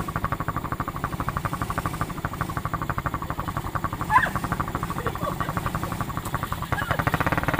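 ATV engine running at idle with a rapid, even chuffing pulse. Near the end it picks up in speed and loudness.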